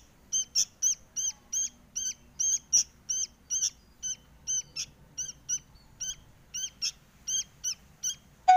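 Sooty-headed bulbul fledgling giving begging calls to be fed: a steady series of short, high, hooked calls, about three a second.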